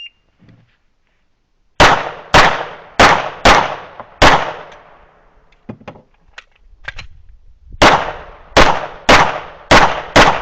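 A shot timer beeps once, then a Glock 17 9 mm pistol fires two strings of five shots, roughly half a second apart. A pause of about three seconds between the strings holds a few light clicks.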